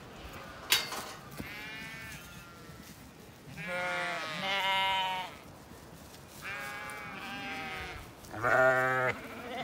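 Zwartbles ewes and lambs bleating as they crowd through a gate, with several long calls overlapping and the loudest one near the end. A single sharp knock comes just under a second in.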